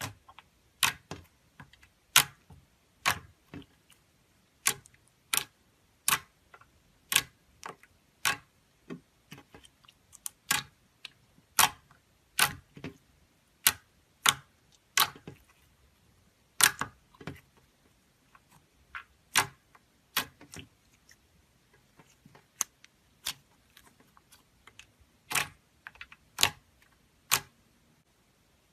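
Clear slime being pressed and poked by hand, giving a long series of sharp, irregular popping clicks, about one or two a second.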